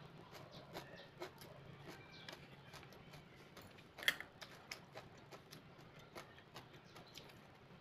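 Faint eating sounds: quiet chewing with many small clicks of metal chopsticks against a porcelain bowl, the sharpest about four seconds in.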